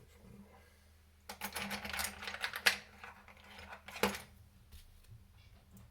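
Small metal kit parts and hand tools clicking and rattling as they are handled: a quick run of clicks in the first half, one sharp click about four seconds in, then a few faint ticks.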